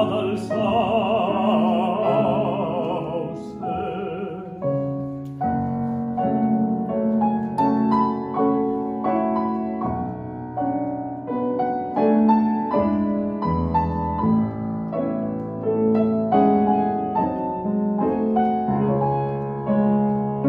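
A singer holds a long vibrato note over grand piano accompaniment, ending about three and a half seconds in; the grand piano then plays on alone.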